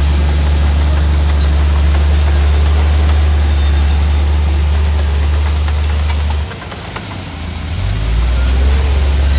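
Heavy diesel engine of earthmoving machinery running with a steady deep drone. About two-thirds of the way through the engine note drops suddenly, then builds back up a second or so later.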